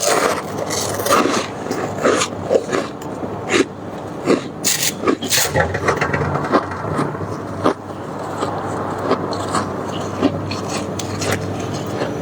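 Freezer frost ice being scraped and crunched: a quick run of sharp, crisp crunches for about eight seconds, then a steadier rasping.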